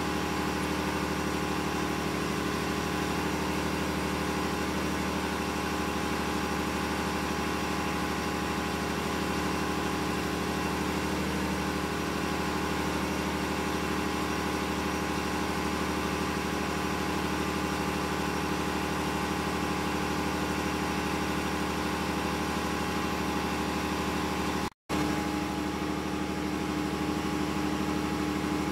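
Steady drone of ship's engine-room machinery running, a constant hum with several steady tones and no change in speed. The sound drops out for a split second near the end.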